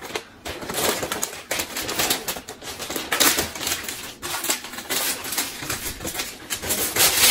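Shiny metallic gift wrap crinkling and tearing as a present is unwrapped, an irregular crackle of rustles and rips.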